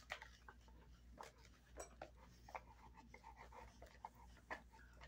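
Dog chewing and gnawing on a beef cheek roll: faint, irregular crunches and clicks of teeth on the tough dried hide.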